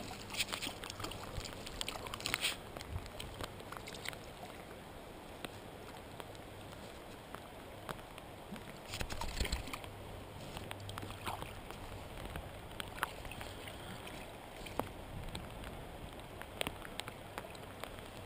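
Shallow stream water sloshing and splashing around a landing net held in the current, over the low flow of the brook, with brief louder splashes near the start and again about nine seconds in.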